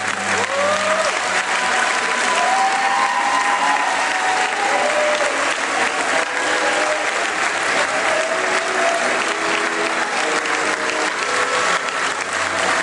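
Audience applauding loudly and steadily, with a few voices whooping over the clapping in the first half. Faint sustained orchestral string notes sound beneath the applause.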